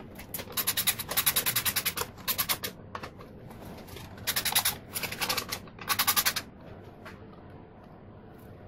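Socket ratchet clicking rapidly as a bolt is turned on a motorcycle frame. The clicking comes in about five short bursts between strokes of the handle.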